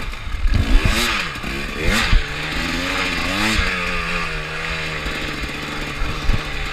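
Enduro motorcycle engine under the rider's throttle, revving up and down several times in the first few seconds, then holding a steady note. A few low thumps come through.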